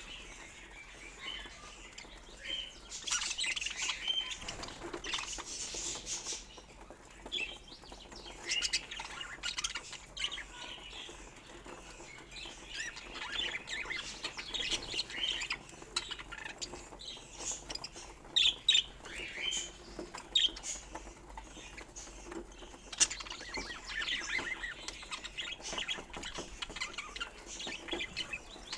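Budgerigars chirping and chattering in quick, irregular bursts of short high chirps, with a few sharper, louder clicks past the middle.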